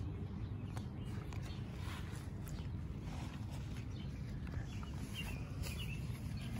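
Outdoor ambience: a steady low rumble with scattered small clicks, and a few faint chirps about five seconds in.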